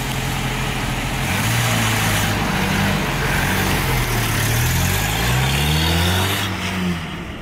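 Datsun 510 engine accelerating away, its note rising and falling in pitch a few times before fading near the end.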